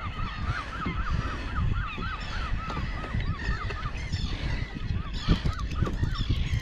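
A flock of seabirds calling: short, high, repeated calls about three a second, thinning out after about three seconds, over a low rumbling noise.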